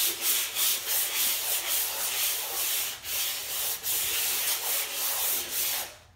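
Sandpaper rubbing in quick back-and-forth strokes over a dried first coat of gesso on an MDF panel. It knocks down the brush ridges and gives the surface tooth for the next coat. The strokes stop near the end.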